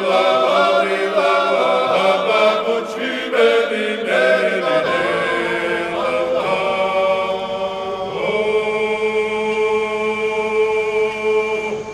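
A choir singing a chant in several-part harmony, settling into one long held chord in the second half that fades out near the end.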